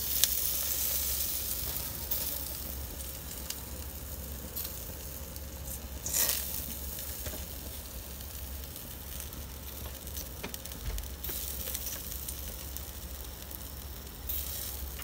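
Chicken quarters sizzling on a grill rack, dripping fat hissing and crackling steadily, with one louder burst about six seconds in.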